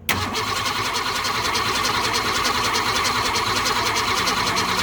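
1960s Ford Falcon engine being cranked over by its starter motor, a steady, even cranking that kicks in suddenly and runs on without the engine catching. The engine has compression but no spark, which the owners suspect is a bad ignition coil.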